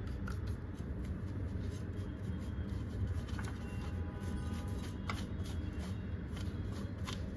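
Cocoa powder being sifted through a hand sieve over a mixing bowl: a steady rustle as the sieve is shaken, with a few sharp taps now and then.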